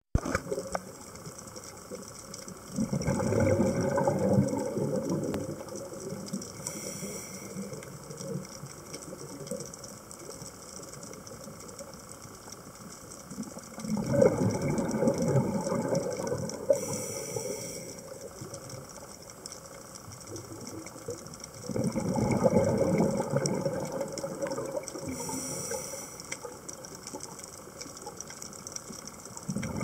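Scuba diver breathing through a regulator: three stretches of bubbling exhalation, each a few seconds long and about eight to ten seconds apart, and three short high hisses of inhaled air through the regulator.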